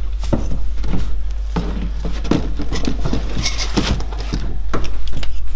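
Irregular footsteps and knocks on bare wooden floorboards as things are moved about and tidied, with cloth rustling about three and a half seconds in, over a steady low hum.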